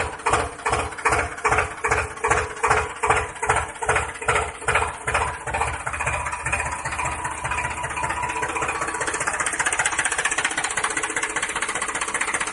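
Tractor engine chugging in slow, even beats about two or three a second, then picking up into a faster, steady run from about halfway.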